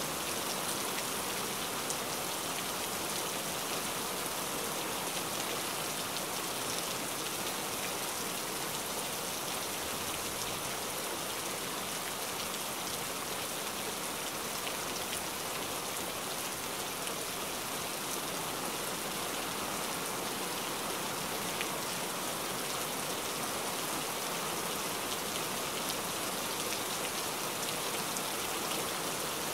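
Steady heavy rain, an even hiss with scattered sharper drop hits.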